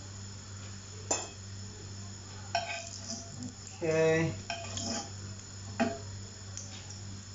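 Metal slotted spatula clinking and scraping against a frying pan several times as steak and garlic are moved around, over a steady low hum.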